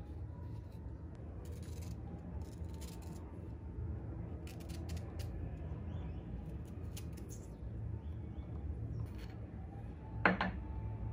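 Kitchen knife scraping the skin off fresh ginger and cutting it into slices, a run of short, dry scraping clicks, with one sharper knock near the end as pieces go into a stone mortar.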